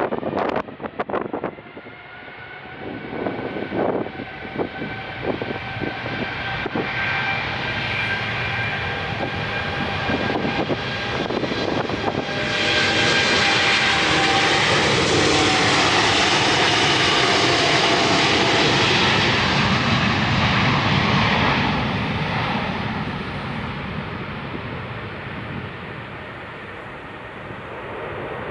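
Jet airliner passing close by: its engine whine builds, swells into a loud rushing roar for about ten seconds, then fades away. Gusty wind buffets the microphone early on.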